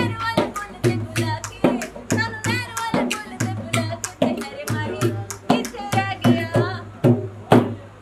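A song: a voice singing over a dholak drum beat of about two to three strokes a second, which cuts off abruptly at the end.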